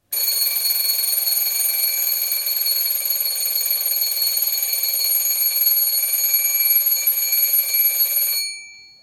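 Alarm clock ringing continuously for about eight seconds, then dying away quickly.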